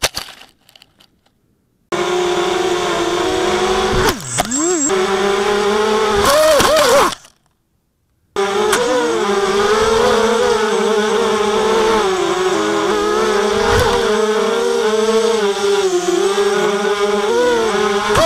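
The four RCX H1806 2400KV brushless motors and 5-inch HQProp 5040 propellers of an FPV racing quadcopter, whining loudly in flight, the pitch wavering up and down with the throttle. It starts abruptly about two seconds in, breaks off for about a second midway, then runs on.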